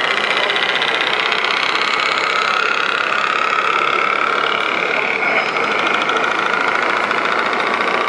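Radio-controlled model trucks running: a steady high whine that drifts slowly in pitch, over a fast, even engine-like rattle.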